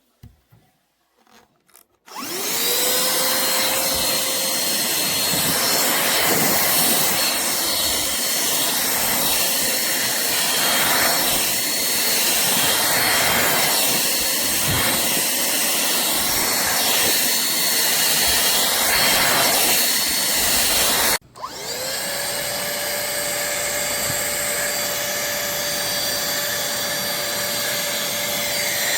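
A pemacom handheld cordless vacuum switches on and its motor spins up to a steady whine, running while the nozzle works over surfaces. About 21 seconds in it cuts out abruptly and spins straight back up again.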